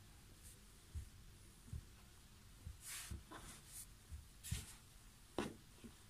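Faint rustling of a t-shirt being folded by hand on a flat surface: soft bumps and a few brief fabric swishes.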